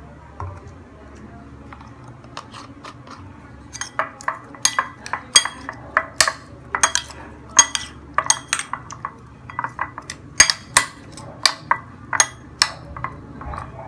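Metal spoon mixing pork cubes in soy sauce and garlic in a glass bowl, clinking against the glass. The clinks are sparse and faint at first, then from about four seconds in come loud and quick, two or three a second at an uneven pace.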